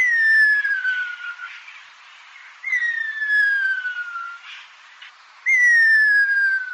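Rhea (ñandú) calling: three long whistles about three seconds apart, each sliding down in pitch, over a faint steady hiss.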